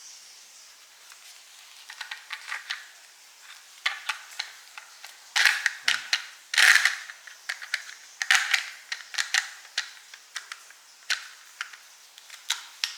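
Hard plastic clicking, scraping and rattling as an NP-F battery adapter plate is handled, a part pushed onto it and its lock worked. The clicks come irregularly, with the loudest scrapes about halfway through.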